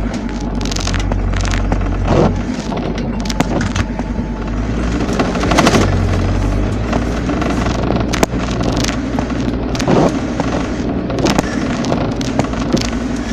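A vehicle driving over rough ground, its engine running steadily under frequent sharp knocks and bangs from the body and suspension, with music in the background.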